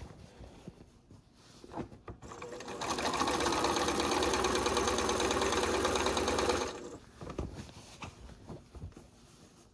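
Domestic electric sewing machine stitching binding onto a quilt. It starts about three seconds in, runs at a steady fast stitch for about four seconds, then stops. Faint rustles and clicks come before and after.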